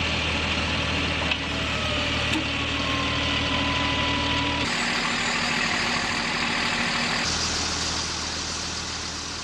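Sound effect of several vehicle engines running at once, a steady low hum under a noisy rushing mix that shifts a few times, then starts to fade near the end.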